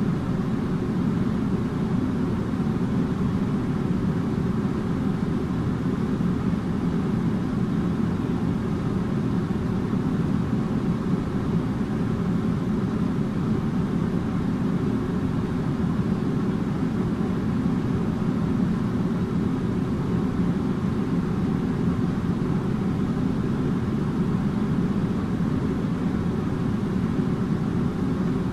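Air conditioner running: a steady low hum with a faint constant tone above it.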